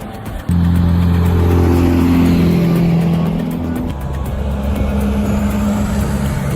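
A heavy truck's loud, steady pitched drone cuts in suddenly about half a second in. About four seconds in, it shifts to a slightly different pitch and carries on.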